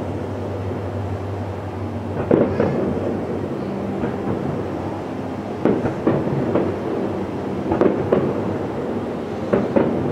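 Distant aerial fireworks shells bursting, in clusters of two or three booms every two seconds or so, over a continuous low rumble.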